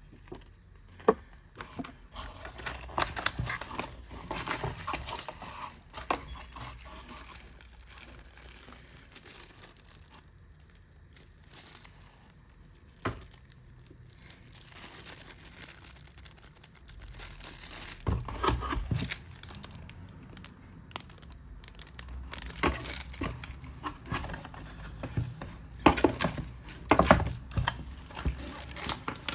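Packaging being handled by hand: plastic wrap and cardboard crinkling and rustling in irregular spells, with scattered sharp knocks and clicks.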